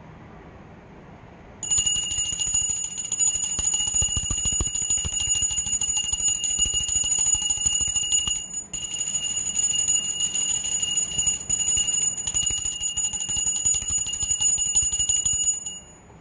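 Small metal puja hand bell rung rapidly and continuously, its clapper striking many times a second against the ringing bell. It starts about two seconds in, pauses briefly about halfway, and stops shortly before the end.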